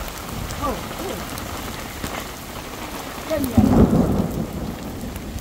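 Heavy rain falling steadily on a tent's plastic sheeting, with a louder, low burst about three and a half seconds in.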